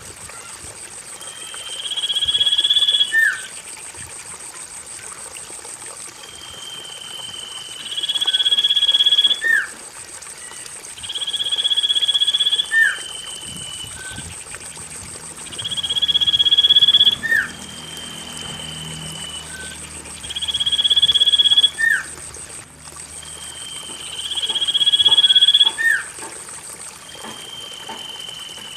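Common iora (cipoh) song used as a lure: a long, clear, high whistle, then a shorter lower note that hooks upward at its end. The phrase repeats about every four to five seconds.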